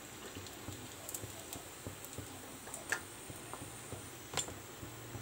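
Sesame seeds frying in a shallow layer of hot oil in a pan, giving a faint, crackling sizzle full of small ticks, while a wooden spoon stirs them. Two sharper clicks come about three and four and a half seconds in.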